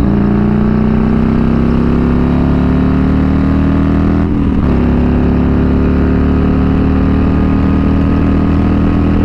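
Harley-Davidson Road Glide Special's Milwaukee-Eight V-twin, fitted with S&S 475 cams and a Bassani exhaust, pulling hard under full acceleration. The engine note climbs steadily, breaks and drops at one upshift about four seconds in, then climbs again.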